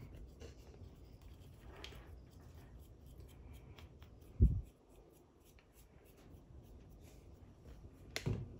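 Faint rubbing and handling noise of a cotton swab spreading petroleum jelly over a Moen faucet cartridge, with a low thump about halfway through and another knock near the end.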